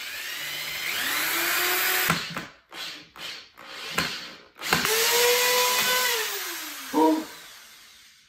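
Corded electric drill drilling through a 3D-printed plastic bracket into the wood, run in several bursts. The motor whine rises in pitch as it spins up, breaks into a few short blips, then runs longer and sinks in pitch as it slows near the end.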